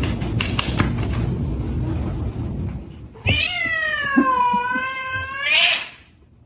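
About three seconds of rustling, knocking noise, then a cat's long, drawn-out meow of about two and a half seconds, dipping in pitch and rising a little at the end.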